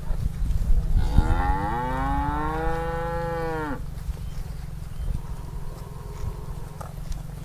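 A cow mooing: one long call of nearly three seconds that rises in pitch at the start, holds, and drops away as it ends.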